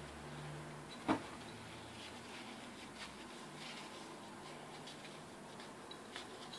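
Faint rubbing of a rag on a metal drill chuck as it is wiped clean by hand, with a single knock about a second in and a few light ticks later.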